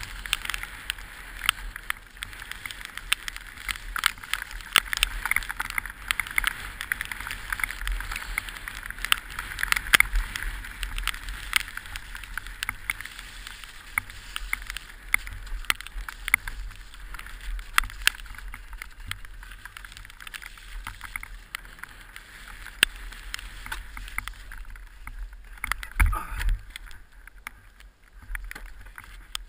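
Orange 223 downhill mountain bike ridden fast over rough, rocky ground, heard from a helmet camera: steady wind rush on the microphone with constant rattling and sharp knocks from the bike. About 26 seconds in, a cluster of heavy thuds as the rider crashes and the bike goes down.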